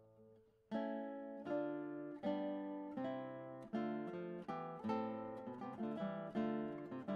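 Background early-music piece played on a plucked string instrument: a held chord dies away, then from under a second in chords are plucked about every three-quarters of a second, with a few quicker notes between them.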